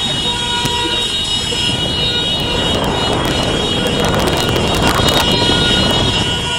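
City street noise with steady, drawn-out horn tones from vehicles held over it. A louder rush of noise swells from about two and a half seconds in and fades by six seconds.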